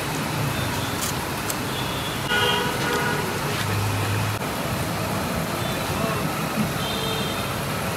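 Steady road-traffic noise with a vehicle horn tooting briefly about two and a half seconds in.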